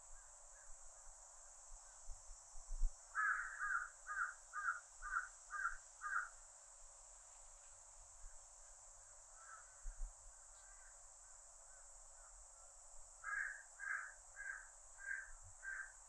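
A crow cawing in runs of about six calls, roughly two a second: one run a few seconds in and another near the end, with a few fainter calls between them. Under the calls runs a steady high drone of cicadas.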